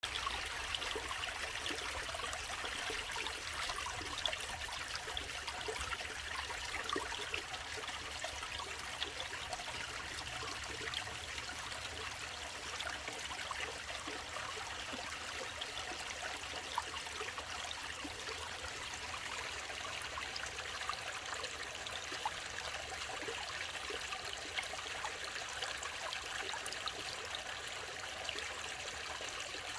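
Mountain valley stream flowing: a steady rushing of water, dotted with many small splashes and bubbles.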